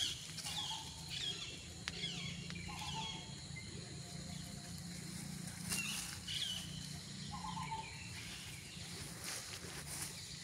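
Birds calling: short high chirps that slide downward, repeated every second or so, with a few lower warbling notes, over a faint steady insect drone and a steady low hum.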